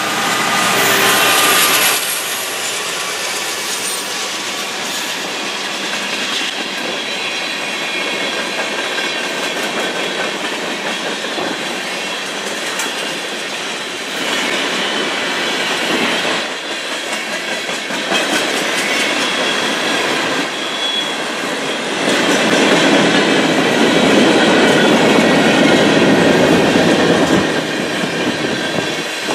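Freight train's tank cars rolling past close by: a steady rush of steel wheels on rail with clatter over the joints. It is louder near the start and swells again in the last third.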